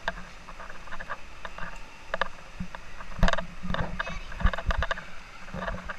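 Handling noise on a phone camera's microphone: irregular knocks, bumps and rubbing as it is grabbed and jostled, over a steady low hum.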